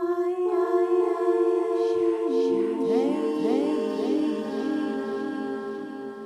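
Layered a cappella voices singing long held tones, joined about two seconds in by more voices sliding up and down in pitch, the whole texture slowly fading toward the end.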